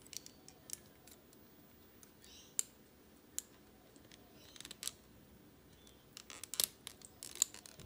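Light clicks and ticks of a plastic 3D-printer filament strand and 3D-printed plastic finger parts being handled as the filament is fed through a joint hole to form an axle pin, with a cluster of sharper clicks near the end.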